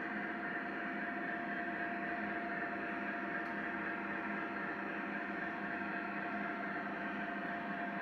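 Model locomotive running steadily on the layout track: an even hum with a steady motor whine.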